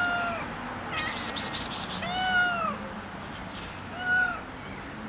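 Stray cats meowing: three meows, the second the longest, about two seconds in. Before it, about a second in, comes a quick run of about six short rustles.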